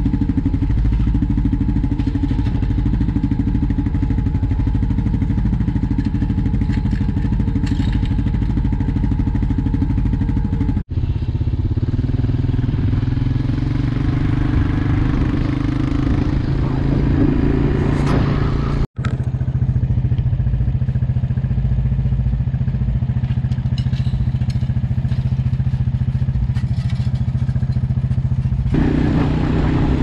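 Quad bike (ATV) engine running steadily as the bike is ridden, heard close up from the front of the bike. The sound cuts out for an instant twice.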